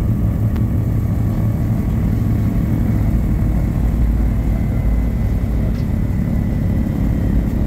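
Douglas DC-3's twin Pratt & Whitney R-1830 radial engines running steadily at taxi power, heard from inside the cabin as a loud, even, low drone.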